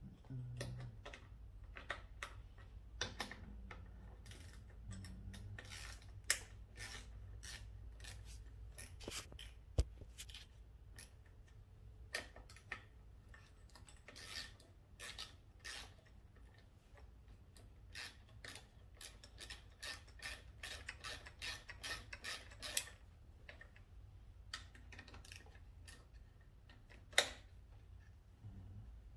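Scattered clicks, taps and light metallic clanks of hand tools and parts being handled while a motorcycle's upper fairing stay is taken off and swapped, over a faint steady low hum.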